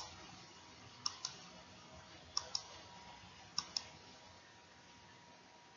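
Computer button clicks, four pairs about a second and a quarter apart, each pair a quick press and release, advancing the bullet points of a presentation slide. A faint steady hiss lies underneath.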